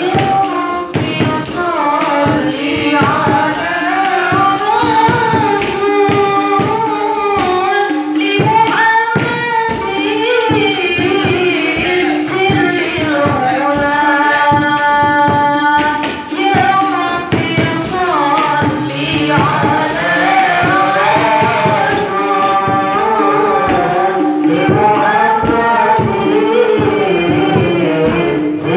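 A woman singing a sholawat, an Islamic devotional song, into a microphone over a PA, with a melodious voice. Hand-drum percussion with jingles beats a steady, busy rhythm under her.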